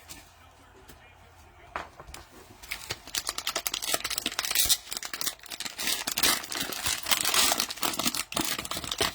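Cellophane wrapper of a trading-card cello pack crinkling and tearing as it is opened, in a dense run of crackles starting about three seconds in.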